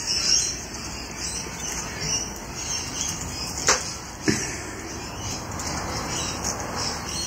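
Solder and flux sizzling with a soft crackling hiss under a soldering iron tip held on a wiring lug. Two sharp clicks come around four seconds in.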